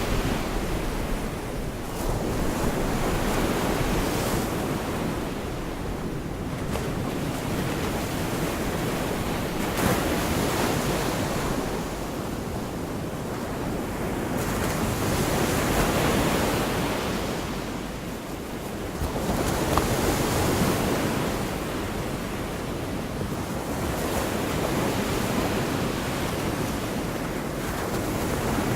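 Gulf of Mexico surf: small waves breaking and washing up the beach, the rush swelling and fading every few seconds.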